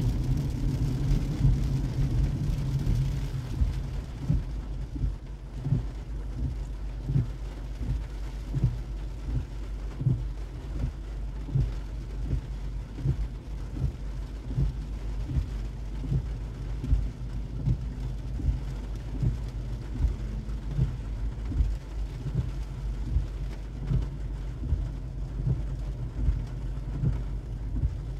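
Rain on a car's windshield heard from inside the cabin over the low, steady rumble of the car. A soft thump comes about once a second as the windshield wipers sweep.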